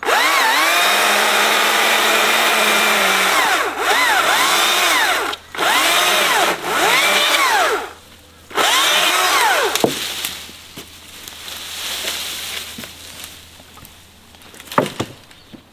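Stihl battery chainsaw (MSA 200 C) cutting a she-oak: a high electric motor whine, steady at first, then speeding up and slowing down with short trigger pulls as the chain bites the wood, cutting out twice briefly. The saw stops about ten seconds in, followed by quieter rustling of cut branches.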